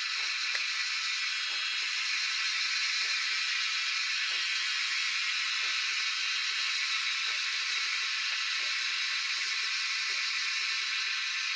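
A steady high-pitched hiss that holds at one level without a break.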